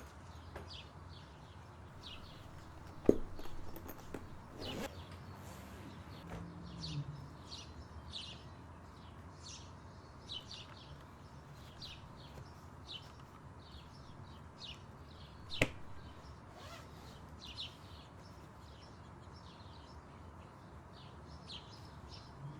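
Small birds chirping repeatedly over a faint steady background hum, with two sharp clicks, one about three seconds in and one about fifteen seconds in.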